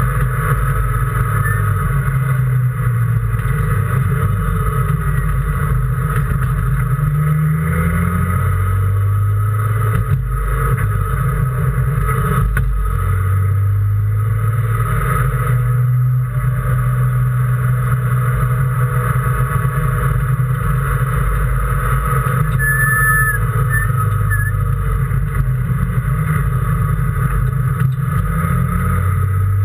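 Race car engine running hard, its note climbing and then dropping again and again as it shifts up and down through the gears, heard from inside the car.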